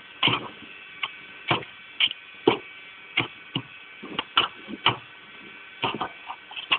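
Irregular sharp clicks and knocks, roughly two a second, over a steady faint hum.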